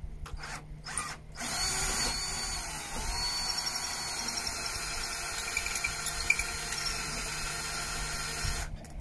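Power drill drilling holes for a mounting bracket: a few short starts, then it runs steadily from about a second and a half in until it stops near the end.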